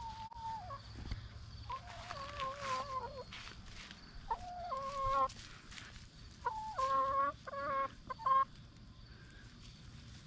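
Several hens calling, a series of drawn-out notes that step down in pitch, coming in bunches with short pauses between them.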